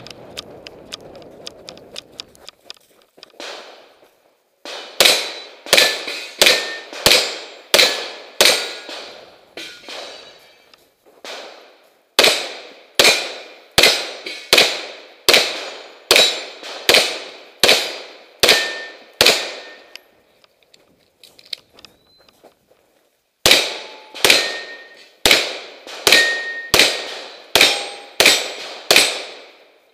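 Rapid gunshots in three strings of about ten shots each, with pauses between the strings. Steel targets ring after many of the hits.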